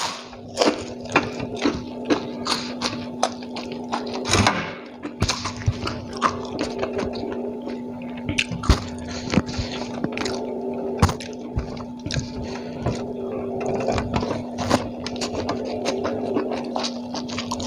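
Close-up hand-eating: wet chewing and lip smacks, with fingers squishing and scraping rice and curry on the paper wrapping, as a dense run of small clicks and squelches. A steady low hum runs beneath.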